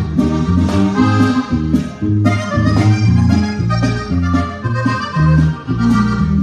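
A norteño band playing instrumentally: an accordion carries the melody over a walking bass line, with a steady drum beat about twice a second.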